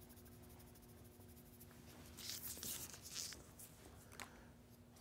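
Near silence: room tone with a faint steady hum, and a few soft scratchy rustles from about two seconds in.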